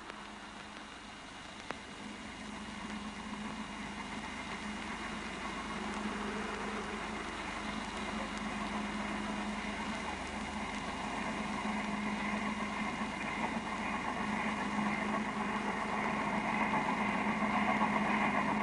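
A steady engine drone with a low hum, slowly growing louder.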